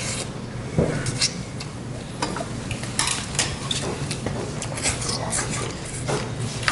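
Metal chopsticks clicking against cooking pots and dishes while eating, a string of scattered light knocks.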